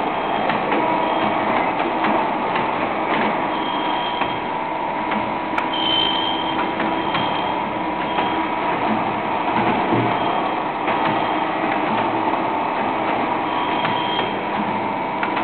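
Servo-driven CNC wire and pipe bending machine running through its bending cycle: a steady mechanical hum with a held tone, several short high-pitched tones and scattered sharp clicks.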